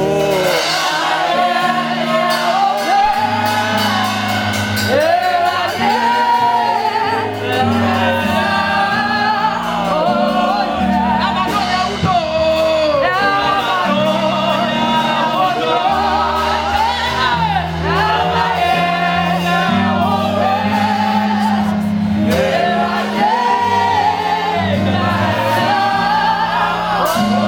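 Gospel worship singing over an instrumental accompaniment, with sustained bass notes that change every second or two.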